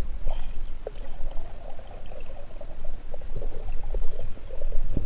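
Muffled water sloshing and bubbling, heard with the microphone underwater, over a steady low rumble.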